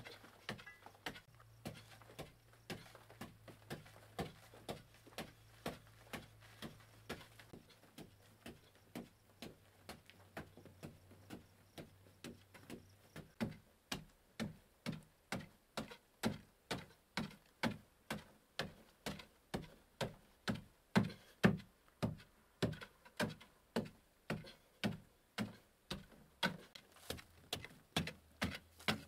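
A mattock striking packed earth in a steady rhythm of dull blows, about two a second, loosening soil from a dirt wall. The blows grow louder from about halfway through.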